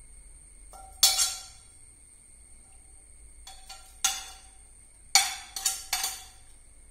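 A metal spoon clinking against dishes as food is served onto a plate: a sharp clink about a second in, another about four seconds in, and a quick run of three near the end, each ringing briefly.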